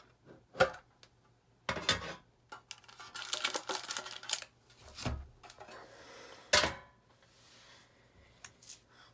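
Hands handling a metal Pokémon card tin and the foil booster packs inside it: scattered clicks and knocks from the tin, a stretch of foil-pack rustling about three seconds in, and a sharp knock about six and a half seconds in.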